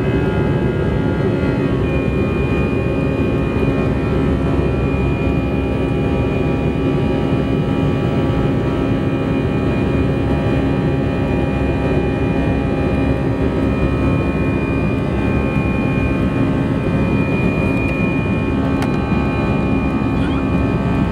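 Airbus A320 jet engines and rushing air heard from inside the cabin during the climb after takeoff: a steady noise over a low hum, with a thin high whine coming in about two seconds in.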